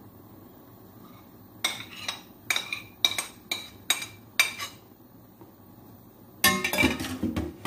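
A metal spoon knocking against a plate and the saucepan about eight times, sharp ringing clinks, as cheese is scraped off into the béchamel. Near the end comes a quicker run of louder clatter.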